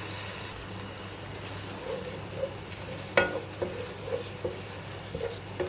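Chopped onions, ginger-garlic paste and green chillies sizzling in hot oil in a pot. A spoon stirs them and knocks against the pot a few times in the second half.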